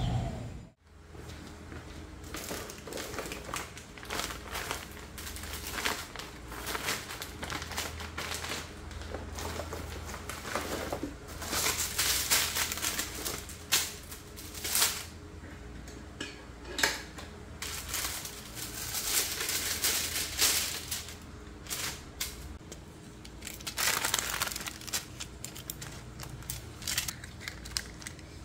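Printed paper sheets rustling and foil blister packs crinkling and crackling as pills are pressed out and sorted by hand, in short irregular bursts.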